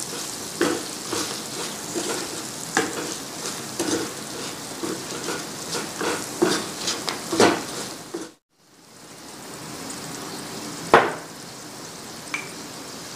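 Wooden spatula stirring raw mango pieces and jaggery through hot oil and spice masala in a non-stick frying pan, with a steady sizzle under repeated scrapes and knocks about every half second. The sound drops out for a moment about eight seconds in, then the sizzling goes on with one louder knock of the spatula a few seconds later.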